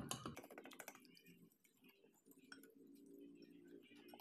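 Small metal whisk clicking rapidly against a glass bowl as eggs are beaten into flour for pancake batter; the clicks are densest in the first second, then turn into fainter, scattered taps.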